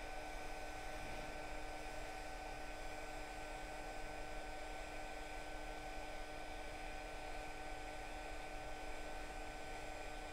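Steady hum of microsoldering bench equipment during the audio IC reflow: several constant tones over a faint even hiss, with no change throughout.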